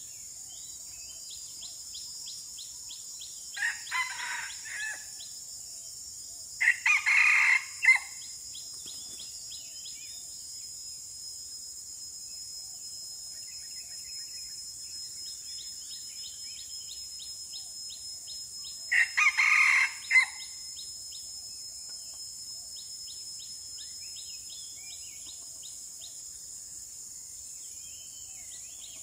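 Red junglefowl cock crowing three times: a fainter crow about four seconds in, then two loud crows around seven and twenty seconds. Between the crows a steady high insect drone goes on, with fast ticking chirps.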